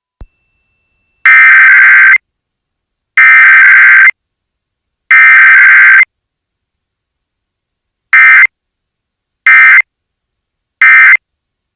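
Emergency Alert System SAME data signal: the raspy digital header burst sent three times, about a second each, then the three short end-of-message bursts. No attention tone or spoken message comes between them, the pattern of a required weekly test.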